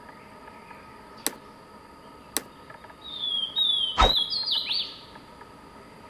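Swainson's warbler singing one short song of clear, falling whistled notes about three seconds in. Three sharp clicks sound earlier and during the song, the loudest about four seconds in.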